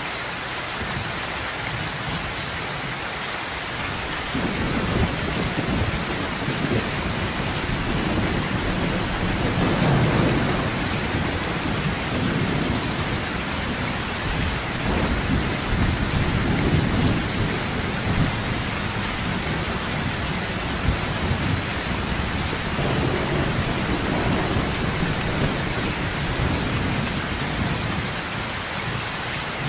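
Heavy rain falling steadily on a metal roof, with thunder rolling in after about four seconds as a low rumble that swells several times and eases off near the end.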